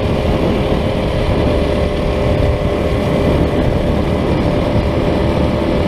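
Minibike's small engine running at a steady pitch while cruising along a road, with a constant low rumble underneath.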